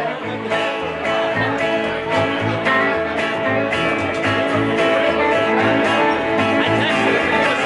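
Live country band playing an instrumental passage between vocal lines: electric guitar, plucked upright bass and acoustic guitar playing together.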